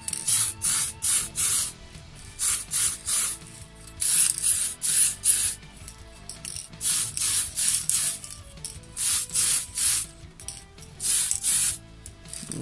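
Aerosol spray paint can being sprayed in many short hissing bursts, several a second, in runs with brief pauses, as a coat of paint goes onto an RC car's polycarbonate body shell.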